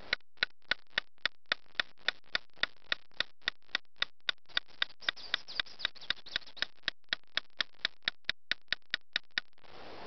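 Batoning: a length of elderberry stick tapping the spine of a knife to split a small stick. The taps are light, sharp and steady, about three or four a second, come a little faster in the second half, and stop just before the end.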